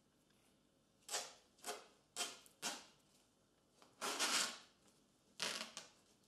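Bandage or adhesive tape pulled off a roll in about six short rips, the longest about four seconds in, while a dog's leg is wrapped.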